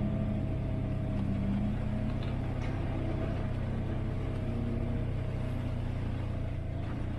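Off-road vehicle's engine running steadily at low speed, a constant low hum with little change in pitch.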